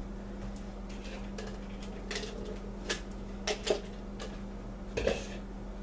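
Scattered light clicks and taps, about seven over a few seconds, from handling a digital kitchen scale and kitchen items, over a steady low electrical hum.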